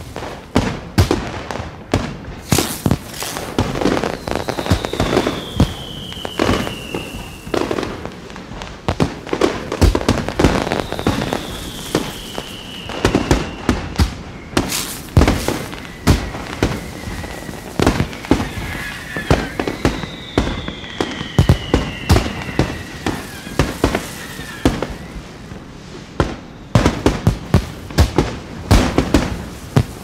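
Aerial fireworks display: a dense run of bangs and crackling from bursting shells, with three long whistles sliding down in pitch.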